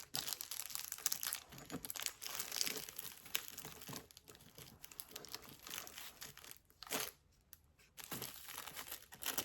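Packaging crinkling and rustling on and off as a jewelry pliers kit is unpacked and handled, with a brief lull about seven seconds in.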